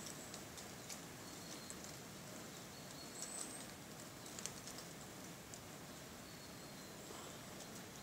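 Quiet woodland ambience: a soft steady hiss with scattered light ticks and a few short, thin, high-pitched bird calls.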